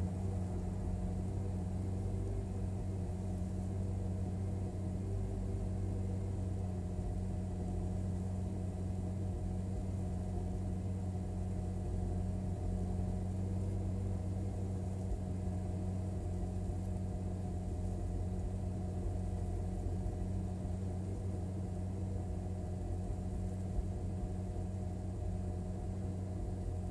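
A 2013 Hyundai Veloster Turbo's 1.6-litre turbocharged four-cylinder engine idles steadily at cold-start high idle. It misfires on one cylinder because of a faulty ignition coil pack.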